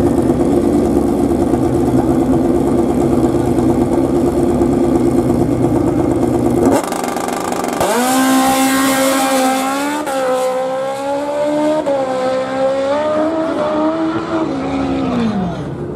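Drag-racing motorcycle engines held at steady high revs on the start line. About seven seconds in, the sound changes abruptly, and then a bike runs down the strip, its engine note climbing and dropping back with each gear change. Near the end the note winds down and fades as the bike goes down.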